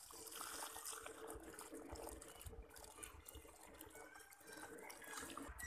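Water pouring from a plastic bucket onto dry soil, a faint steady stream.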